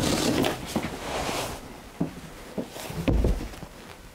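Upholstered bench-seat cushions being lifted and shifted, a soft brushing rustle of fabric, followed by a few light knocks and a dull thump about three seconds in.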